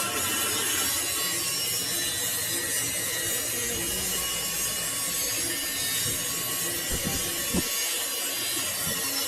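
Metal lathe cutting a steel shaft: a steady scraping hiss from the tool on the metal, with a couple of short knocks about seven seconds in.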